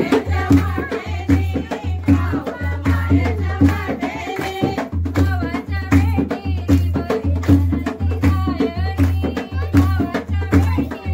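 A group of women singing a Gauri pheri folk song together, keeping time with steady rhythmic hand-clapping over a deep, pulsing drum beat.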